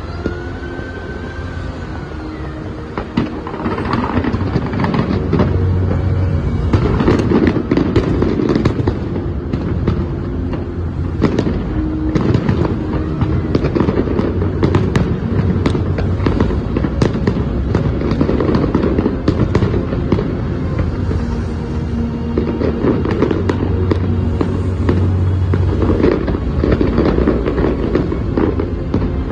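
Aerial firework shells bursting in a large display: a dense run of bangs and crackling that starts about three seconds in and keeps going.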